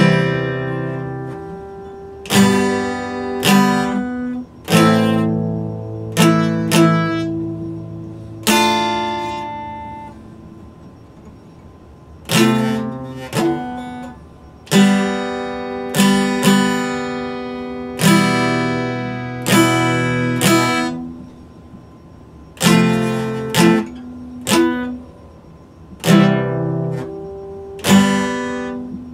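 Epiphone acoustic guitar strummed: single chords struck and left to ring out, some in quick pairs, with a longer pause about ten seconds in.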